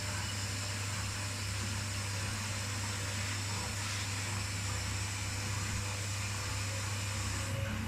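Two washing machines running, the Electrolux in its final spin cycle: a steady low hum with an even hiss over it.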